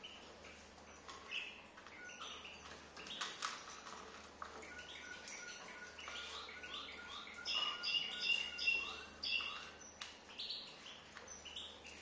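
Pet cockatiels chirping in a cage: a busy run of short chirps, with a held whistle-like note in the middle and the loudest calling about eight seconds in.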